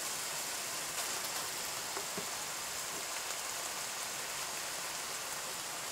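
Steady sizzling hiss from a pan of sausage and sauerkraut simmering on the stove, with a faint click about two seconds in.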